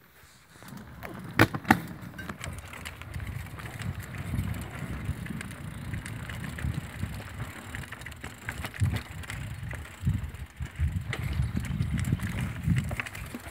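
Mountain bike ridden down a dirt singletrack: a steady low rumble of the ride, broken by sharp clacks of the bike jolting over bumps, two loud ones about a second and a half in.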